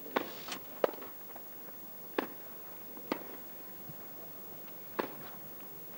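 Sharp knocks of a tennis ball: three quick ones about a third of a second apart near the start, then single hits spaced a second or two apart, as in a point being played.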